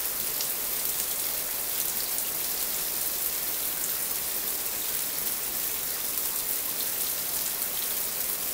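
Shower running: water spray falling in the stall with a steady, even hiss.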